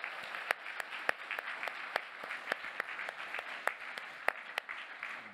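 Audience applauding after a talk, a steady patter of many hands clapping that fades near the end.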